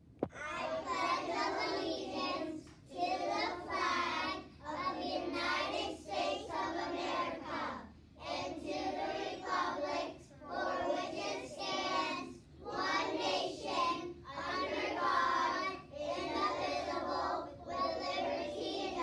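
A class of young children reciting the Pledge of Allegiance together in unison, phrase by phrase with brief pauses between phrases.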